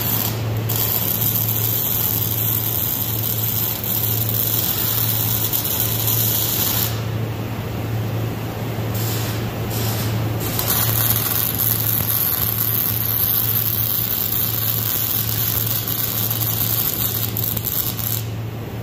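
Wire-feed (MIG) welding arc hissing and crackling in long runs, stopping for a couple of seconds about a third of the way in, then a few short bursts before the next long run. A steady low hum runs underneath.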